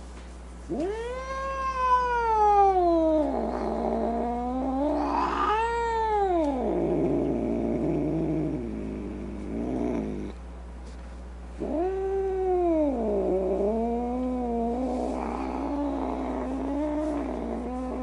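A cat calling in long, drawn-out cries that rise and fall in pitch. Two come close together, then, after a short pause about ten seconds in, a longer wavering one.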